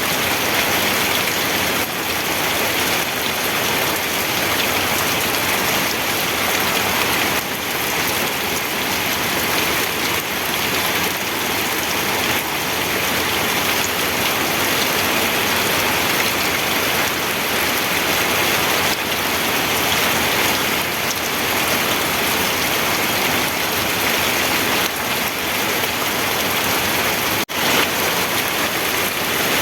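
Steady heavy rain, an even hiss of drops falling on a surface, with a momentary dropout near the end.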